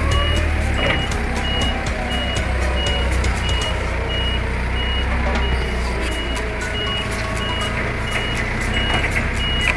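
Diesel forklift driving, its engine a steady low drone, with its warning beeper sounding about twice a second and light rattling from the truck.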